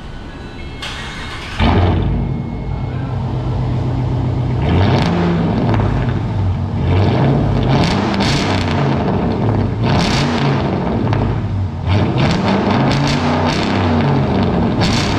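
Straight-piped 2018 Dodge Durango R/T's 5.7-litre Hemi V8, its resonators and mid mufflers cut off, starting up about a second and a half in, then idling. From about five seconds on it is revved again and again, the pitch rising and falling with each blip.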